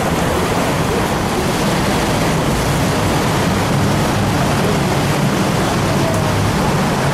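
Tour boat's engine running steadily under rushing water and wind noise on the microphone as the boat passes beneath a stone bridge arch.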